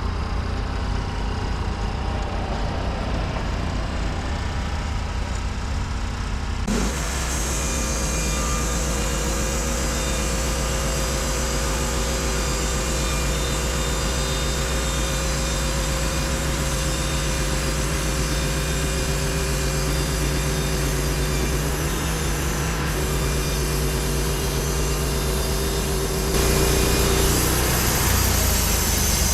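Portable bandsaw sawmill's engine running steadily. About seven seconds in, a loud hiss like the blade sawing through timber starts suddenly and holds until near the end, when the sound shifts again.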